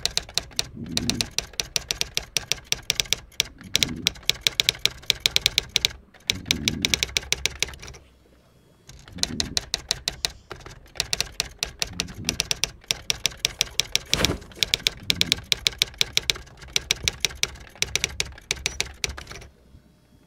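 Typewriter keys clacking rapidly in long runs of about five or six strikes a second, with a brief pause about eight seconds in and one louder strike around fourteen seconds in.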